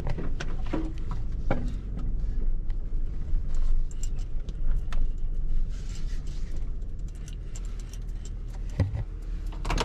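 Pickup truck driving, heard from inside the cab: a steady low rumble of engine and road noise with frequent small rattles and clicks.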